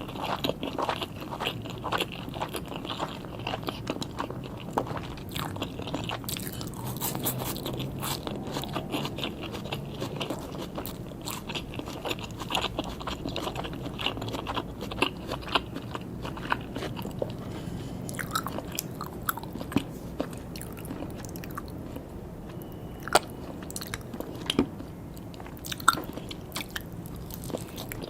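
Close-miked chewing and biting of sushi and sashimi: a dense, continuous run of small wet clicks and crunches, with a few sharper clicks near the end.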